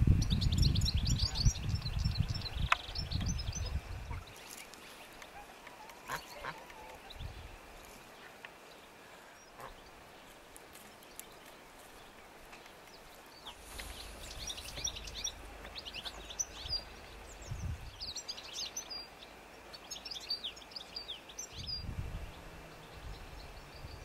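Pond birds calling: domestic geese honking among many short, high chirps of small birds. A loud low rumble runs under the first few seconds.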